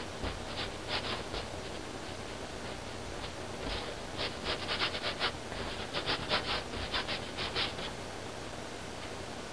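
Paintbrush working acrylic paint onto canvas in quick short strokes, a few near the start and a faster, louder run from about four seconds in, over a steady hiss.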